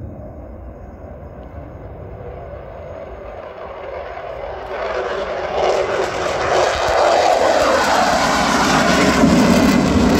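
F-16 fighter jet engine roar, swelling from a distant rush to loud about halfway through as the jet passes low over the runway and climbs away, with a deep rumble building near the end.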